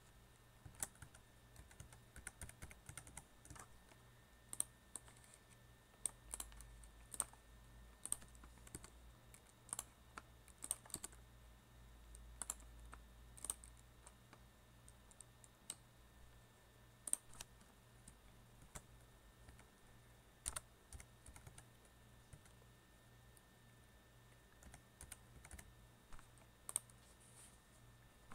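Typing on a computer keyboard: quick irregular bursts of keystrokes with short pauses between words.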